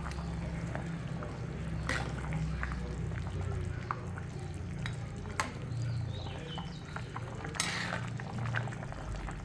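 A pot of chicken curry being stirred, with wet sloshing and a metal spoon clinking and scraping against the pot now and then, a few sharper clinks among them. A low steady hum runs underneath.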